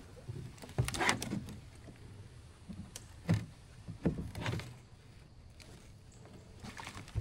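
Polyethylene kayak being pushed and dragged along a shallow, muddy creek with a paddle: a few separate scrapes and knocks of the hull and paddle against the bottom, about a second in, around three to four and a half seconds in, and again near the end.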